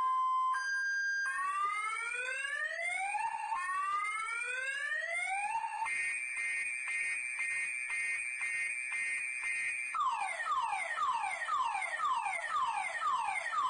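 Car alarm siren cycling through its tone patterns. Two tones alternate at the start, then come two slow rising whoops, then a steady, rapidly pulsing tone for about four seconds, and finally a run of quick falling sweeps, about two a second.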